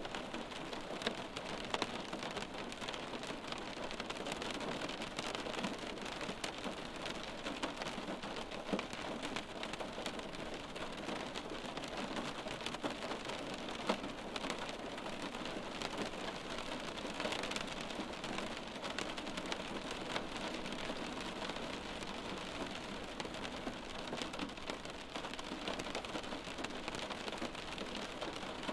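Steady rain falling on a hard surface, with many separate drops ticking through the hiss.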